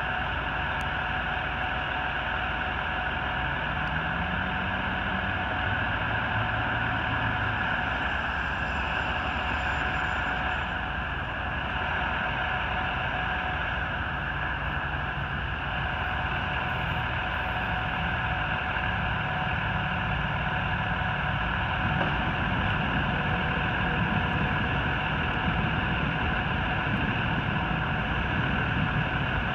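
Fire truck's diesel engine idling in a steady drone, its pitch rising and falling a few times. The low rumble grows fuller and louder about three-quarters of the way through.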